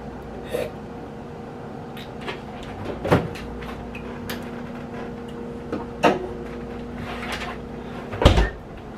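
Refrigerator freezer door pulled open with a clunk about three seconds in and later pushed shut, with a few light knocks as things are handled, and a heavier thump near the end as the loudest sound.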